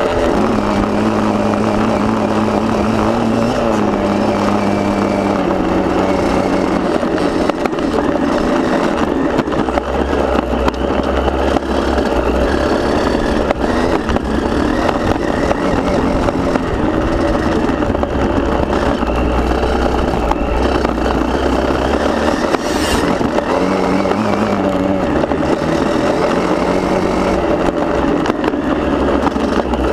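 KTM motocross bike's engine heard from a camera mounted on the bike, running continuously with its pitch rising and falling as the throttle is worked around the track, over steady wind and track noise.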